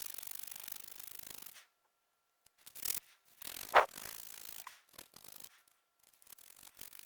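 Sandpaper rubbing on a stainless steel watch case: quick rasping strokes in several short spells with breaks between them. A brief sharp sound a little before the middle is the loudest moment.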